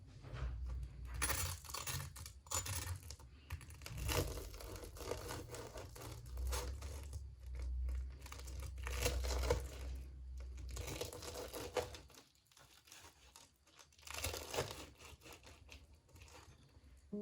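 Irregular crinkling and tearing sounds of something being handled, in short bursts over a low hum; the hum fades out about three quarters of the way through.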